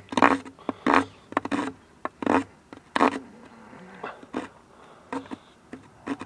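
Small saw blade of a pocket multi-tool rasped back and forth across a stick of wood, five strong strokes in the first three seconds, then weaker, fainter scrapes. The blade cuts poorly.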